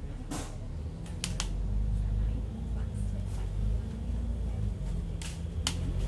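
Double-decker bus heard from inside on the upper deck: a low engine and road rumble that grows louder about a second in as the bus moves through a turn, with a few sharp clicks from the bus body.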